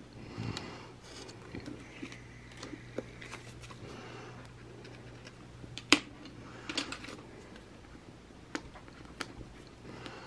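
Paper and sticker sheets being handled on a desk: light rustling and small clicks, with one sharp click about six seconds in, over a low steady hum.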